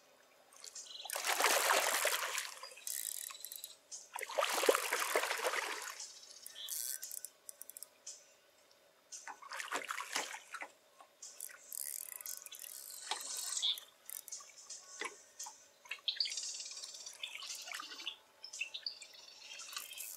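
A hooked fish thrashing and splashing at the water's surface while being played on a rod: several rushing splashes, the two loudest about a second and about four seconds in, then shorter, weaker ones.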